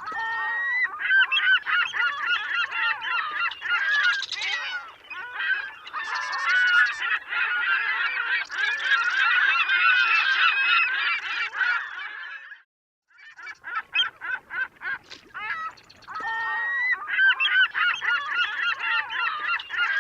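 A flock of geese honking, many calls overlapping in a continuous chorus. The sound breaks off abruptly about two-thirds of the way through, then resumes.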